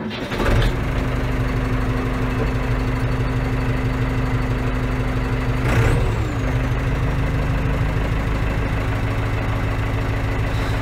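Case IH tractor diesel engine cranking briefly and starting, then idling steadily at about 800 rpm. About six seconds in, the engine note briefly rises and falls.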